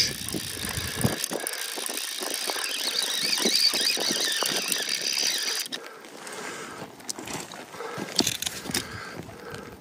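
Fly reel drag whirring as a hooked trout runs and pulls line off the reel. It stops about six seconds in and gives way to scattered short clicks.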